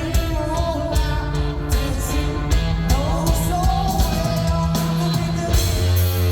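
Live rock band playing, with singing over electric guitar and a steady drum beat.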